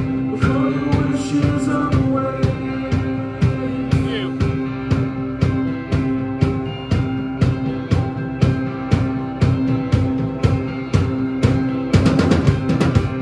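Live indie rock band playing: distorted electric guitars holding sustained chords over bass and a drum kit keeping a steady beat. About twelve seconds in, the drums break into a quick fill.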